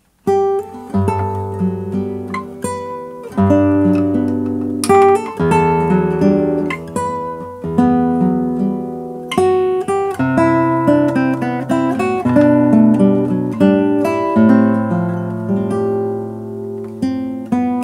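Nylon-string classical guitar played fingerstyle as a solo piece: a plucked melody over held bass notes, beginning abruptly a moment in.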